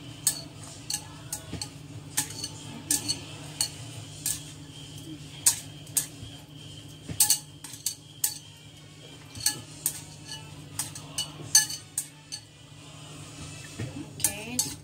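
Chopsticks clicking and tapping irregularly against a ceramic plate and a metal dish while picking up dried goji berries and scattering them over chicken pieces, with a low steady hum underneath.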